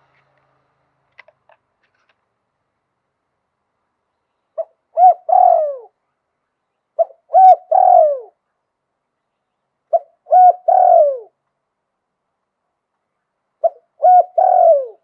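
Spotted dove cooing, in the cadence Thai dove keepers call 'liu tan'. After a few quiet seconds it gives four phrases about three seconds apart, each two or three short coos followed by a longer coo that falls in pitch.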